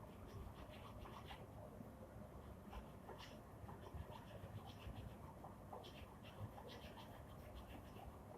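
Faint, irregular scratching: a series of short scrapes at uneven intervals over a low background rumble.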